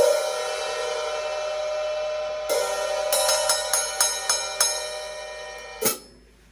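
Paiste 2002 15-inch Sound Edge hi-hats struck open and left ringing. A second strike comes about two and a half seconds in, then a quick run of strokes at about five a second, and a last short stroke near the end after which the ringing stops.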